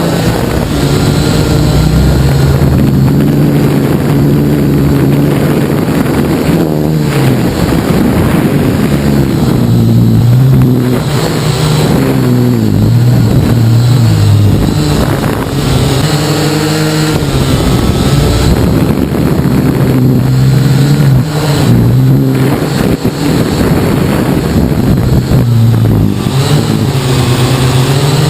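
Syma X8HG quadcopter's motors and propellers buzzing in flight, the pitch rising and falling again and again as the throttle changes.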